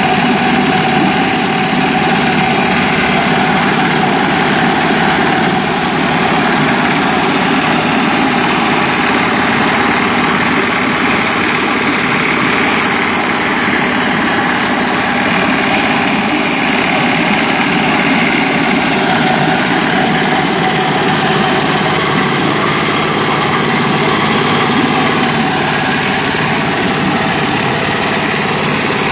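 13 hp ketinting engine running steadily at a constant speed, driving an axial propeller pump.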